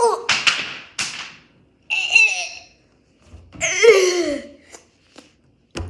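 A person laughing in short breathy bursts, about four of them roughly a second apart, some sliding down in pitch.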